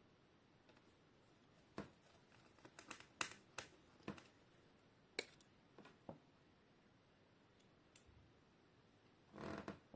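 Small screws and a screwdriver clicking and tapping against the laptop's plastic and metal screen frame as the new LCD panel's screws are put back in. The clicks are sparse and irregular, with a short rustle near the end.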